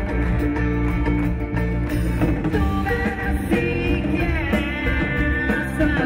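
Live band music: a male lead singer over a drum kit and other instruments.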